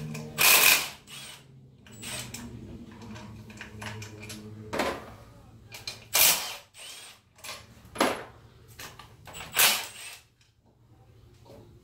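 Cordless power driver spinning out the throttle-body bolts on an intake manifold, in about five short bursts, the first and loudest right at the start, with bolt and tool handling clatter between them.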